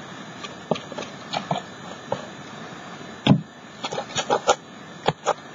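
Scattered light taps and clicks of hands working tissue-paper blossoms onto a glued canvas, with a louder knock about three seconds in and a quick run of taps soon after.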